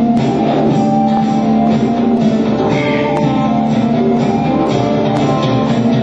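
Dance music with a held low drone note under plucked strings.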